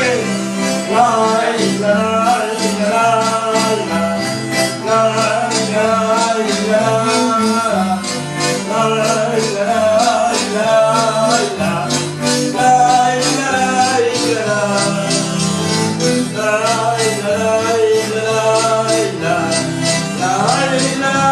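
Live Chilote folk music led by an accordion, with held chords and a moving melody over a steady jingling percussion beat.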